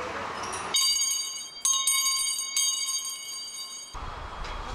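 A bright metal bell chime, struck three times about a second apart, each strike ringing on. All other background sound drops out while it plays, and it cuts off suddenly.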